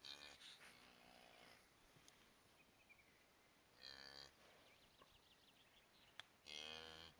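Cow mooing softly in three low calls, a longer one at the start, a short one in the middle and another near the end, as she licks her newborn calf: a mother's calls to a calf just born.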